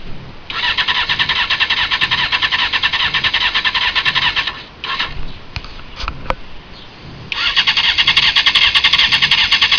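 2001 Honda CBR600 F4i's inline-four being cranked on the electric starter, turning over in rapid even pulses without firing. Two attempts of about four seconds each, the second starting about seven seconds in, with a few clicks between them: the bike cranks but won't start.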